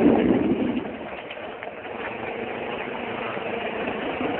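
Motorcycle engine running as the bike rides along, heard mostly as a steady noisy rush; it gets quieter about a second in.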